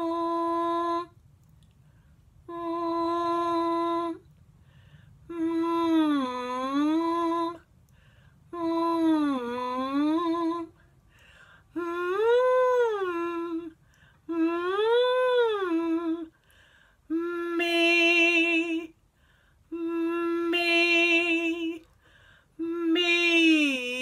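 A woman's voice doing vocal warm-up exercises: a series of single-note phrases about two seconds long, some held steady, some dipping lower and coming back, others swooping up and back down, each followed by a short pause for the pupils to copy.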